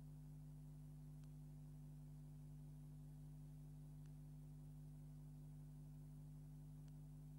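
Near silence: a faint steady electrical hum, with three faint ticks evenly spaced about three seconds apart.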